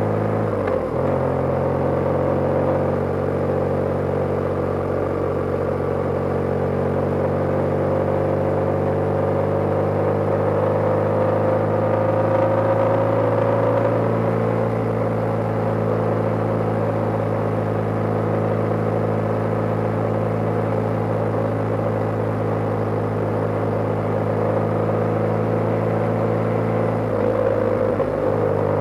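BMW GS motorcycle engine running steadily at cruising speed, heard from the rider's position. Its pitch rises gently over the first half of the ride and shifts briefly near the end.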